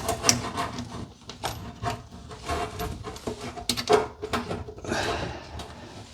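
Irregular knocks, clicks and rustling of a kitchen faucet's water supply hoses and fittings being handled and fitted under the sink.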